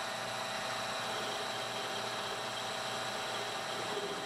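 Small metal lathe running steadily with a constant hum and whine while its cutting tool turns down an aluminium rod.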